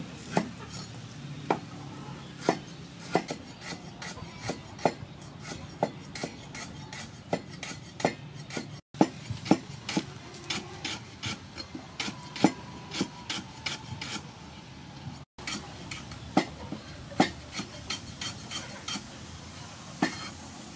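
Knife blade slicing through lemongrass stalks onto a thick wooden chopping board. Irregular sharp knocks of the blade striking the wood, about one to three a second.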